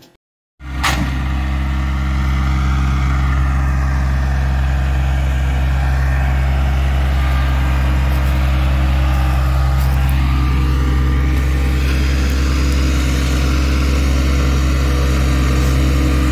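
Compact loader tractor's engine running steadily as the tractor drives, a constant low hum that comes in after about half a second of silence.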